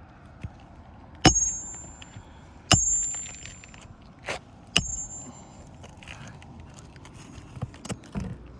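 Hammer striking nails three times, each sharp blow leaving a brief high metallic ring, followed by softer knocks and scraping.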